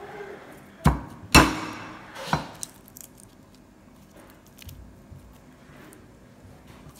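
A cleaver knocks three times on a wooden chopping block, crushing garlic cloves. The second knock is the loudest and trails off with a ring. Faint clicks and rustles of cloves being peeled by hand follow.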